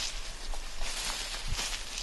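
Several people's rubber-booted footsteps crunching and rustling through dry leaf litter, in an uneven walking rhythm.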